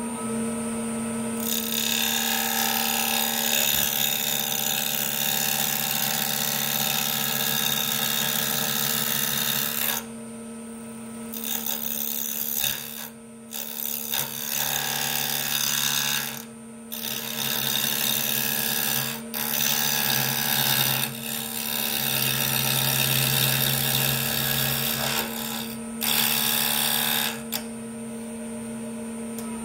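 Wood lathe motor running with a steady hum and whine while a hand-held turning chisel cuts a spinning padauk spindle. The cutting noise starts about a second and a half in and runs in long spells, with short breaks where the tool comes off the wood: a longer one about ten seconds in and a few brief ones later.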